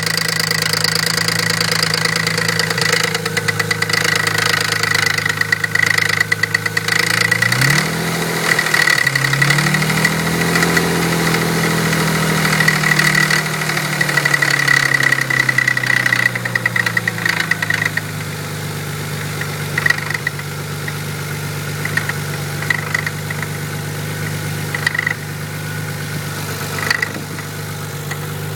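Nissan 300ZX twin-turbo 3.0 L V6 running on a cold start with a knocking, ticking noise over the idle. The engine revs up about a quarter of the way in and slowly settles back to idle. The owner links this to a valve lifter tick that shows up after the car has sat for a few days and fades once it warms up.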